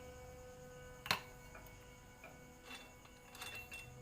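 A single sharp metallic click about a second in, then a few faint clinks, as a cylinder block is slid down over an oiled piston and its rings.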